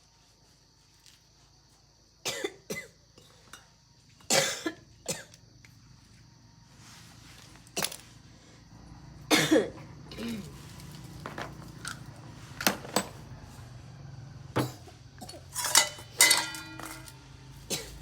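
Bicycle repair work: about a dozen irregular sharp knocks and clinks of metal tools and parts, a few of them loud, over a low steady hum.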